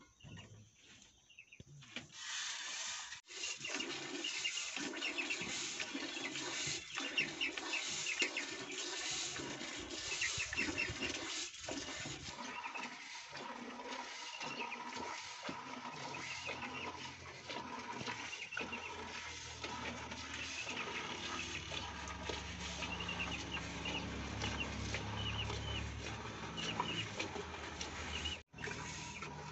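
Cow's milk squirting from the teats into an aluminium bucket as a cow is hand-milked, a steady hissing patter of quick rhythmic squirts starting about two seconds in.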